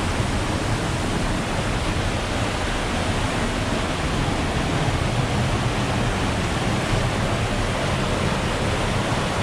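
Waterfall and rushing creek water: a loud, steady rush of falling water.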